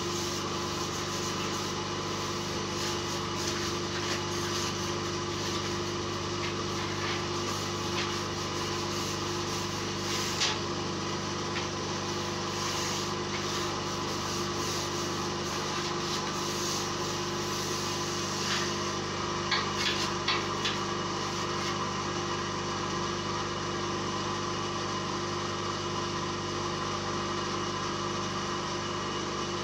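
Machinery running with a steady motor hum, under the rubbing of a cloth over a perforated steel table. A few short taps and scrapes come through, mostly in the middle of the stretch.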